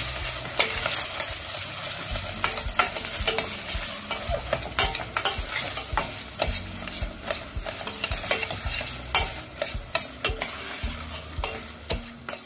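Chopped onions, peppers and tomato paste sizzling in oil in a stainless steel pot, with a steady hiss, while a spoon stirs and scrapes them, knocking against the pot in frequent irregular sharp clicks.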